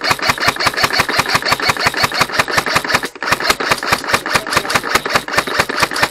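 Airsoft rifle firing a long full-auto burst: a rapid, steady string of shots that doesn't let up.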